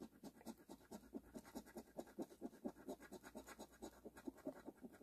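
A coin scratching the coating off a scratch-off lottery ticket in faint, quick, even strokes, about five a second.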